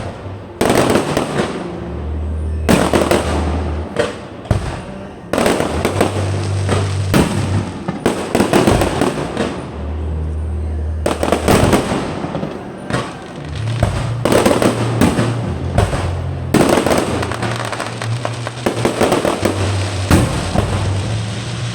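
Fireworks bursting again and again, many reports in quick clusters with a crackling tail, over music with a deep bass line that steps in pitch.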